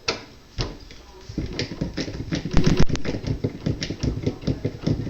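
Irregular clicks, knocks and rattles of a refrigerator's freezer back panel and its screws being worked on by hand, growing busier and louder about a second and a half in.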